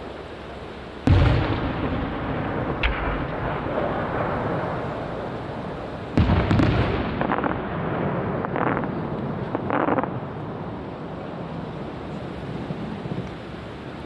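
Aerial firework shells bursting. A heavy boom comes about a second in and another about six seconds in, with a sharp crack near three seconds and a run of smaller bangs after the second boom, each trailing off in a long rumbling echo.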